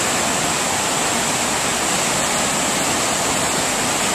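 The Vltava River rushing noisily down a low drop, a steady loud roar of water like a small waterfall.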